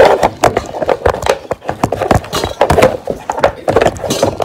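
Handling noise of a camera being grabbed and moved close to the microphone: a quick, irregular run of knocks, taps and rubs.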